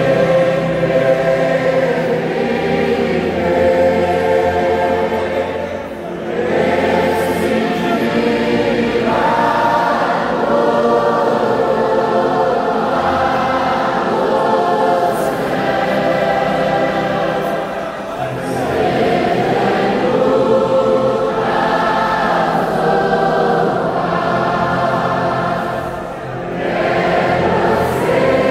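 A large congregation singing a hymn with an orchestra accompanying: many voices in sustained lines over a steady bass. The sound dips briefly between phrases, about three times.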